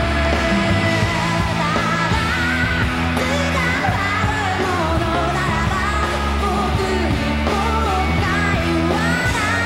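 Live rock band performance: a woman sings the lead vocal over electric guitars and the band.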